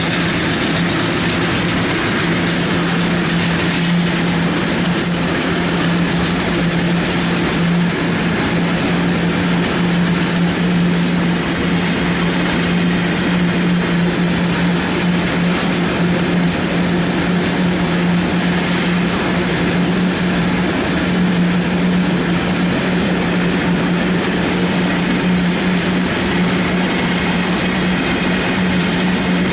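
Loaded cement-wagon freight train rolling past: a steady rumble of wheels on rail over a steady low hum.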